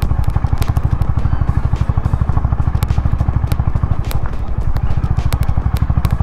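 Honda H'ness CB350's single-cylinder engine running steadily at low speed, a fast, even exhaust beat, with scattered sharp clicks and clatter from the tyres on the loose gravel road.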